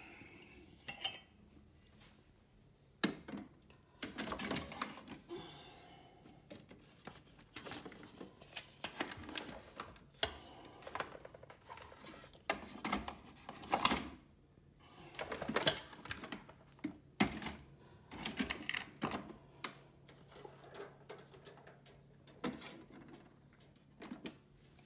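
Irregular clicks, knocks and light clatter of hands working a single-serve pod coffee maker and ceramic mugs on a kitchen counter, some strokes sharper and louder than others.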